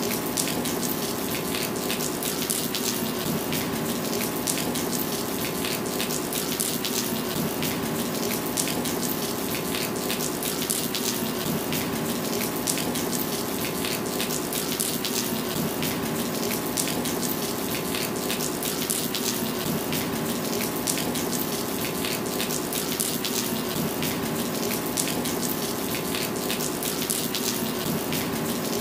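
Steady heavy rain on wet pavement: a dense even hiss full of sharp drop ticks, with water pouring off a roof edge in a steady stream.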